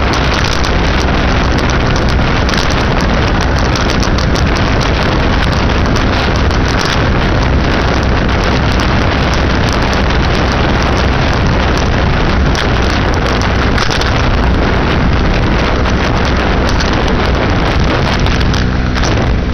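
Loud, steady wind noise on the microphone from a 2006 Baja SC50 moped being ridden at a steady speed, with the moped's small engine running underneath.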